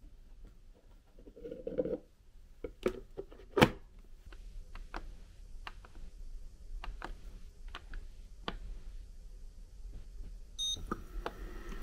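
Hard plastic clicks and knocks as the lid of an ultrasonic aroma diffuser is set onto its water-filled base, the loudest about three and a half seconds in, then lighter clicks from its button. Near the end the diffuser beeps once as it switches on, and a faint steady hum follows.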